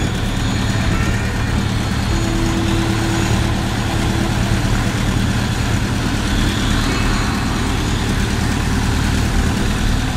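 Piston engines of a Partenavia P.68 twin idling steadily on the ground, a constant low drone with the propeller turning.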